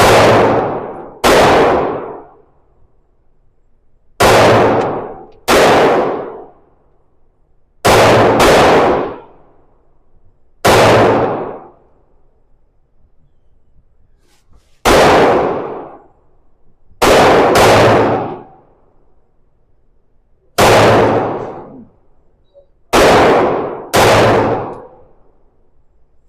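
SIG P365 X-Macro 9mm pistol firing about thirteen single shots at a slow, uneven pace, some as quick pairs. Each report is followed by about a second of ringing echo.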